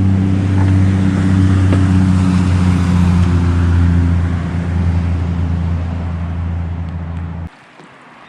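Small boat motor running steadily at a constant pitch, then stopping suddenly about seven and a half seconds in.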